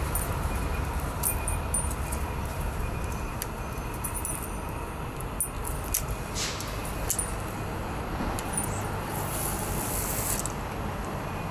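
Steady low outdoor rumble of urban background noise, with scattered light metallic clicks and a short hiss about nine seconds in.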